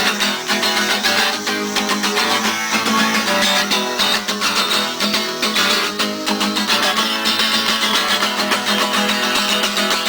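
Acoustic guitar strummed fast and steadily, an instrumental passage of a live folk-punk song.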